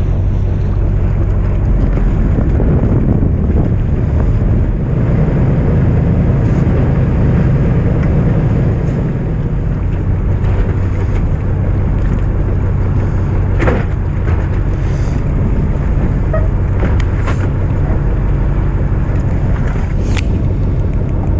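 Fishing boat's engine running with a steady low hum under wind noise on the microphone and the sea. Two sharp clicks stand out, one about two-thirds of the way through and one near the end.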